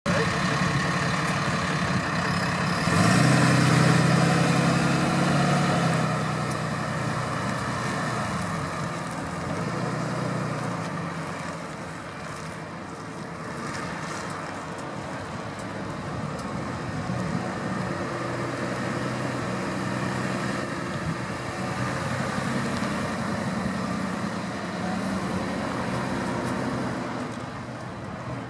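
Cummins diesel engine of a Sterling Bullet service truck running as the truck drives. It is louder for about three seconds shortly after the start, then steadier and quieter as the truck moves away.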